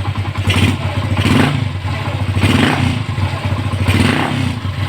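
Yamaha SZ's single-cylinder four-stroke engine idling and revved in four throttle blips. It runs smoothly after a top overhaul that cured the loss of compression that kept it from starting.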